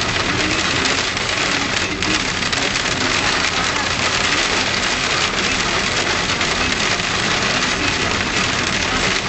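Hail drumming down: a dense, steady patter of countless small hits.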